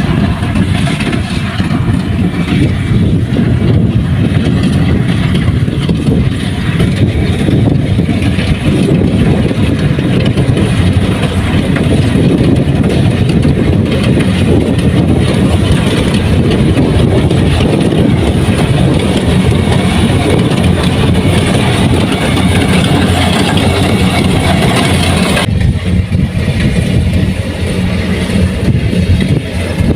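Kubota rice combine harvester running steadily: a loud, continuous engine and machinery drone with a low hum and a wide hiss. About 25 seconds in, the higher hiss drops away abruptly and a steadier low hum carries on.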